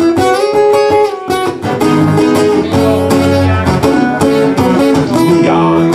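Acoustic guitar strummed in an instrumental passage of a soul ballad, with a run of chord strokes that ring on between them.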